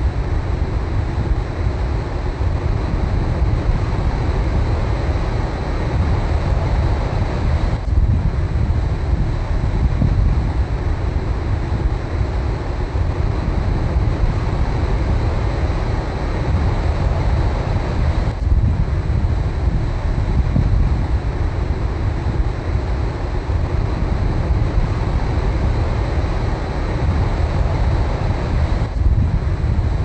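Steady rush of surf breaking on a beach, with strong wind buffeting the microphone and giving a heavy low rumble. The hiss dips briefly about every ten seconds.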